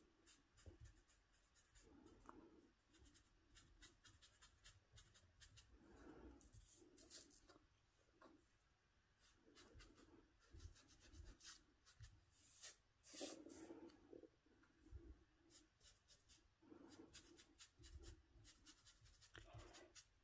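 Faint, soft rubbing and dabbing of a small ink sponge on foamiran petals lying on paper, with scattered light taps.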